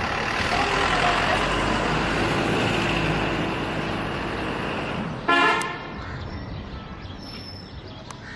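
Road traffic: the rush of a passing vehicle swells and fades, then a vehicle horn gives one short toot about five seconds in, the loudest sound.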